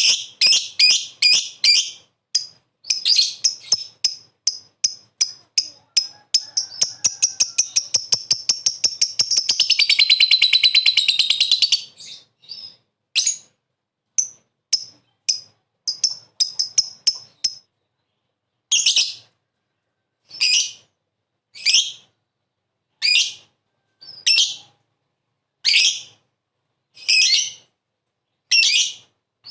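Lovebird calling in high, sharp chirps, then going into its ngekek chatter: a run of calls that speeds up into one long continuous trill for several seconds. After that it drops back to single loud calls, about one every second and a half.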